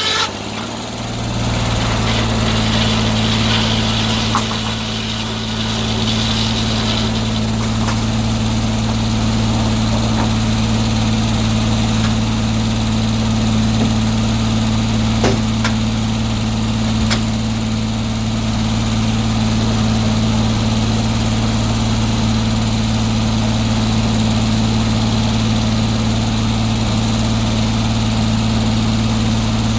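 Sawmill engine running steadily at an even speed, with a few faint clicks.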